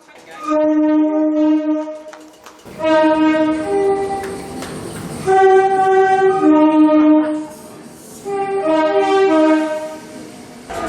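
A train's two-tone horn sounded several times, each blast stepping between a low and a high note. A rumble of train noise runs underneath from about three seconds in.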